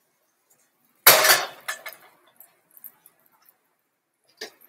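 Dishes clattering: a loud ringing clatter about a second in, followed by a few lighter clinks and another small knock near the end.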